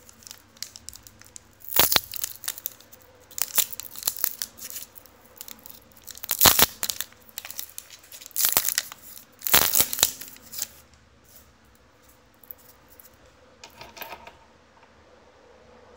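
Plastic wrapper of a pack of trading cards being torn open and crinkled, in several sharp crackling bursts over the first ten seconds or so, then quieter handling.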